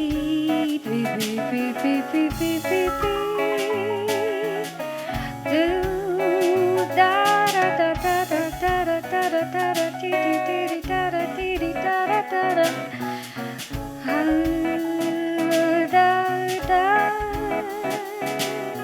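Live jazz-style band music: guitar, bass and drums, with a melody line that wavers in vibrato, playing an Indian song arranged as jazz.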